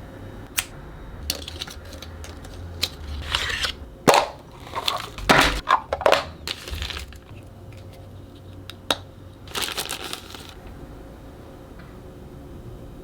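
Toy packaging being handled and opened by hand: sharp clicks and crackling, crushing rustles of plastic and cardboard. The rustling is busiest from about three to seven seconds in and again near ten seconds.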